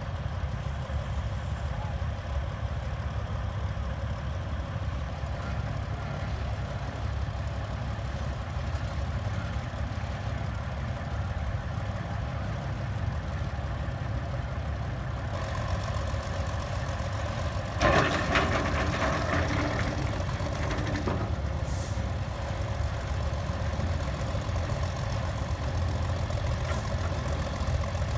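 Engine of an antique cable-and-chain-driven power shovel running steadily, with a louder clattering burst of knocks about eighteen seconds in that lasts around three seconds.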